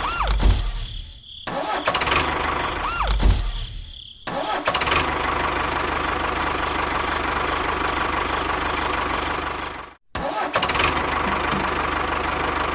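Small engine being started: two short spin-ups that rise and fall in pitch, then it catches about four seconds in and runs steadily. It drops out abruptly for a moment near the end, then runs on.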